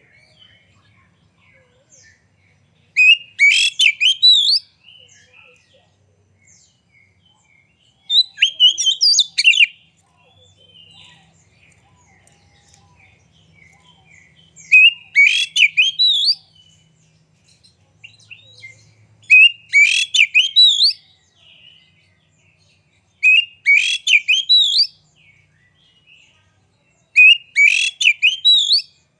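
Oriental magpie-robin (kacer) singing in short, loud phrases of rapid, varied high notes, about six phrases each lasting a second or two, spaced every four or five seconds.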